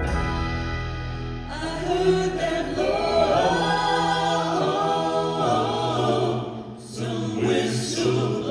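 Live country music with backing singers holding slow, shifting chords.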